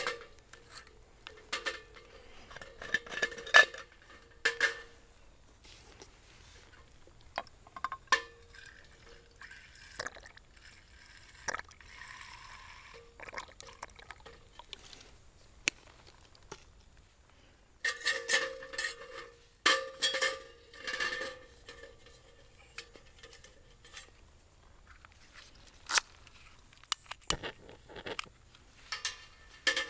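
Metal camp cookware and utensils clinking and knocking in irregular bursts, each with a short metallic ring, and a brief pour of liquid about twelve seconds in.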